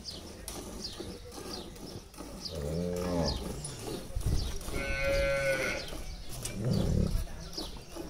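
Hand-milking a Gir cow: milk squirting from the teats into a steel pail of frothy milk in a steady rhythm. Cattle moo about three seconds in, and a second, higher-pitched call follows about five seconds in.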